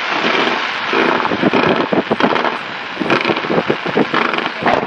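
Fireworks firecrackers crackling densely, many rapid pops running together into a continuous rush of noise, with a cluster of sharper cracks about two to four seconds in.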